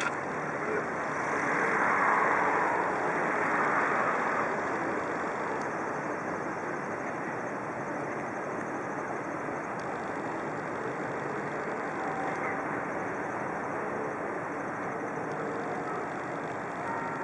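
Steady outdoor rumble of motor traffic and engines, swelling louder for a few seconds about a second in as a vehicle passes closer.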